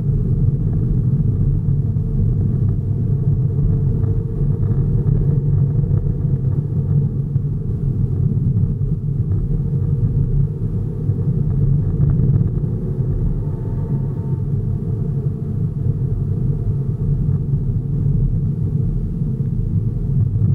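Steady, loud rumble of a vehicle driving along a rough country lane: engine and road noise picked up by a dashcam mounted in the vehicle.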